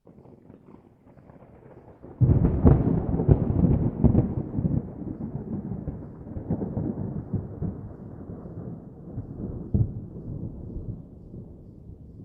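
Distant thunder rolling: a low rumble that breaks into a loud crackling peal about two seconds in, then rumbles on and slowly fades, with one more sharp crack about ten seconds in.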